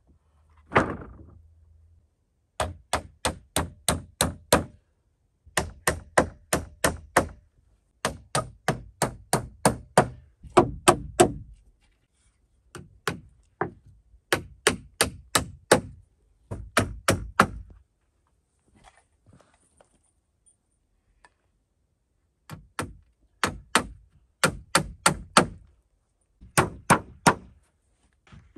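Hammer driving nails through wooden roof boards into a log rafter, in runs of quick blows about four a second with short pauses between. A single heavier wooden thump about a second in as a board is laid down.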